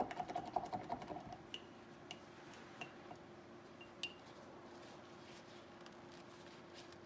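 Faint taps and clicks of a paintbrush working on palette and canvas: a quick run of small ticks at first, then scattered single clicks about a second apart. A faint steady hum runs underneath.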